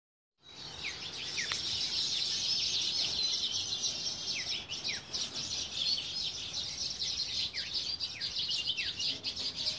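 Many birds chirping at once: a dense, continuous high twittering, with short downward-sliding whistles every second or so. It starts about half a second in.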